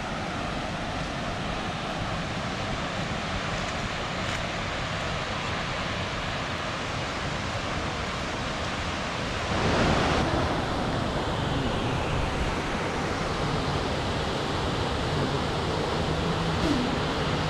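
Waterfall: a steady rush of falling water that swells louder a little past halfway.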